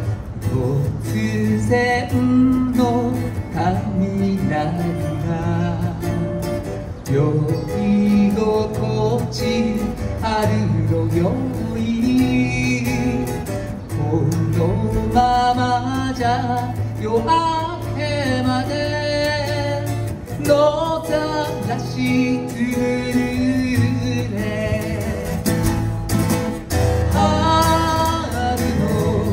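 Folk song performed live: a man singing to two guitars, amplified through a small PA.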